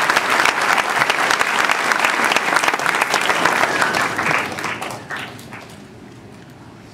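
Audience applauding with dense clapping, which dies away about five seconds in.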